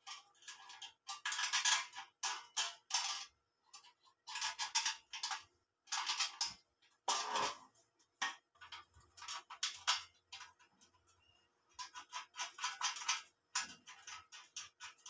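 Clusters of light metallic clicks, taps and rattles from the sheet-metal body of a home-made waste-oil stove being pressed, lifted and stood on end, with one heavier knock about seven seconds in.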